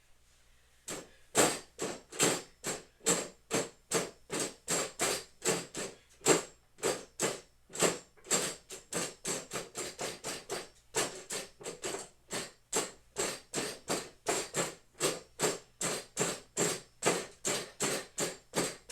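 A punching bag being struck again and again in a steady rhythm, about two to three punches a second, with a brief pause about halfway.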